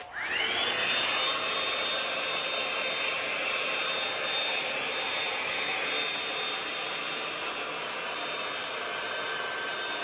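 Hot-air dryer brush switched on: its fan motor spins up with a quickly rising whine, then runs steadily, blowing air with a high whine over the rush.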